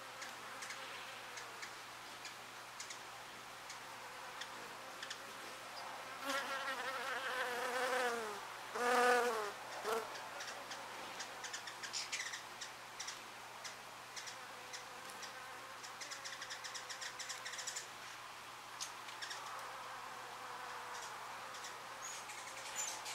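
An insect buzzing in flight close past the microphone, twice, about six and nine seconds in, its pitch wavering as it moves. Faint high clicks and ticks throughout.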